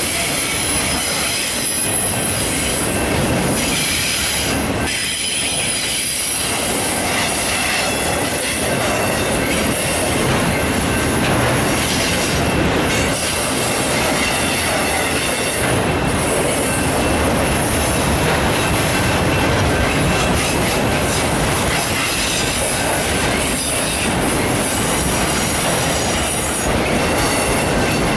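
Freight train of autorack cars rolling past, steel wheels on the rails making a steady, loud rolling noise with thin high squealing tones above it.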